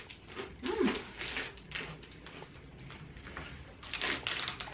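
Crisp packet crinkling and rustling as hands reach into it, with small crackles throughout and a louder rustle about four seconds in. A short hum of a voice comes under a second in.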